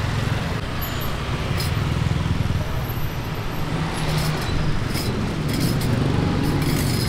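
Road traffic: a steady low rumble of passing vehicles, with a few light clinks and taps over it.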